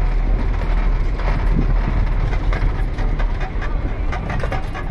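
Lorry driving slowly along a bumpy gravel track, heard from inside the cab: the engine running under a steady low rumble, with the cab clattering and rattling over the rough ground.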